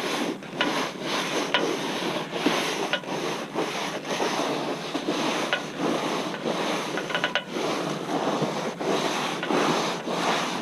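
Gas-engine pressure washer running, its water jet hissing and spattering unevenly against vinyl siding through a white wide-fan nozzle tip.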